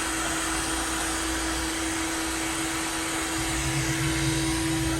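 Heat gun running with a steady airy hiss and a constant low hum, post-heating the freshly applied vinyl wrap film so it sets and stays in place.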